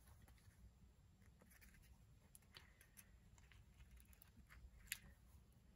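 Near silence with faint rustles and small ticks of paper and sticker sheets being handled, and one sharper tick about five seconds in.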